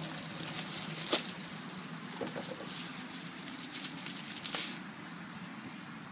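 Plastic poly mailer and bubble-wrap pouch crinkling and rustling as they are pulled apart and handled, with a sharp crackle about a second in and a longer rustle around four seconds in.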